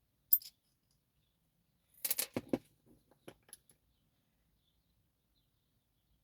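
Small metal lock parts (pins and pieces from a disassembled lock cylinder) clicking and clattering against each other and a hard surface: one sharp click near the start, then a quick flurry of rattling clicks about two seconds in, tapering into a few light ticks.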